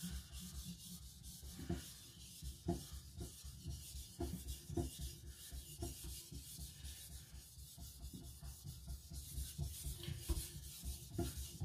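Chinese cleaver's blade being stroked back and forth on a fine whetstone of about 2,000–3,000 grit, a soft repeated rubbing scrape with each pass. The strokes smooth away the shoulders behind the edge.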